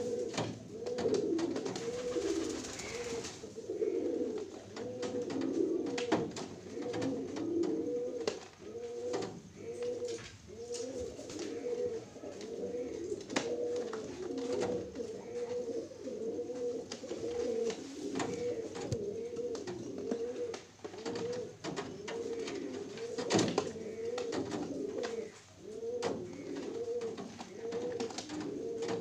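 Domestic pigeon cooing, a steady run of repeated coos, with a few sharp clicks in between.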